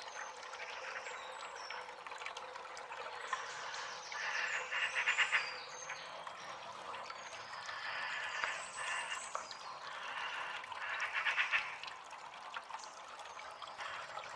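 Water trickling and splashing into an aquarium, with louder bubbly splashing that swells three times.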